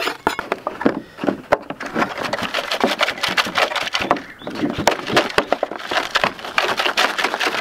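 Crushed cheese crackers and flour rattling and crunching inside a lidded plastic container as it is worked by hand to mix them for breading: a dense, irregular run of quick crackles and ticks.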